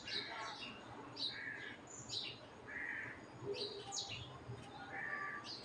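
Faint birds chirping, short high calls coming two or three times a second, some sweeping downward.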